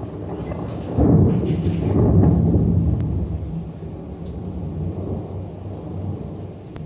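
Thunder: a very loud crack about a second in, rolling into a deep rumble that slowly fades.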